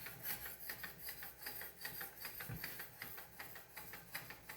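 A 3000-grit stone on a Wicked Edge guided sharpener scrubbing up and down a kitchen knife's bevel: quick, even rasping strokes, about three or four a second. The grit is fine enough that the strokes are faint and smooth.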